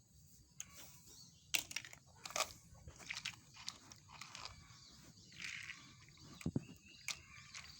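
Plastic toy train track pieces and blocks being handled and fitted together: scattered light clicks and knocks, a dozen or so over several seconds.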